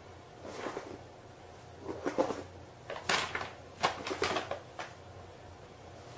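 Paper shopping bag rustling and crinkling in short, uneven bursts as a kitten moves about inside it, the busiest rustling a little past the middle.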